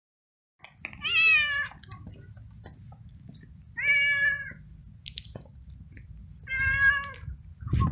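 Stray tomcat meowing three times, each call drawn out and about two and a half seconds apart, the first falling in pitch. These are the calls of an unneutered male in heat, which his caretaker takes for a call for a mate rather than a plea for food.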